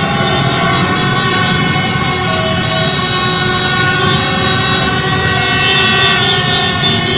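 Many horns sounding at once in a continuous din of overlapping steady tones, over a dense low rumble of engines.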